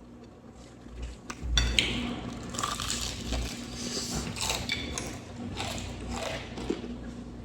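Close-up biting and chewing of crispy fried chicken: irregular crunches that start about a second and a half in.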